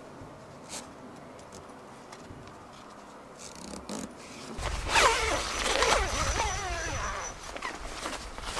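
A zip on a nylon shower tent being pulled in a few strokes: a rasp that wavers in pitch, starting about five seconds in, with fabric rustle and a low rumble of handling.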